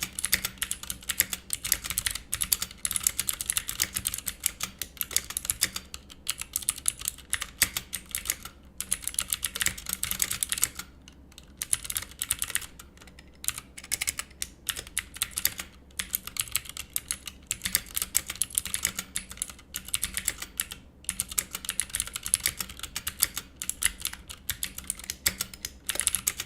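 Typing on a mechanical keyboard with Cherry MX Blue clicky switches: fast runs of sharp keystroke clicks, broken by a few brief pauses.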